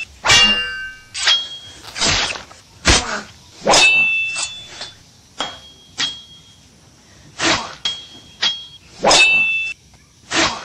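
A run of sharp metallic clinks, each with a brief bright ring, mixed with swishing sweeps: about a dozen strikes, irregularly spaced. These are blade-clash sound effects laid over the toy knife being waved.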